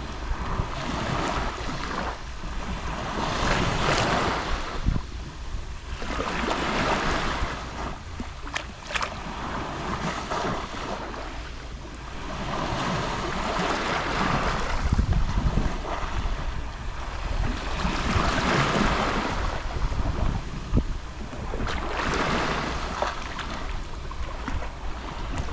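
Small Mediterranean waves lapping and washing on the shore, each swelling and falling away, about six in a row, every three to four seconds. A steady low rumble of wind on the microphone runs underneath.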